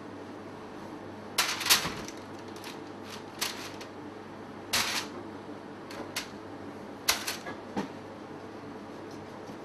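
A utensil knocking and scraping against a stainless-steel mixing bowl as crumbly dough is scooped out onto a board: a handful of sharp, irregular clatters, the loudest a quick cluster about a second and a half in. A steady low hum lies underneath.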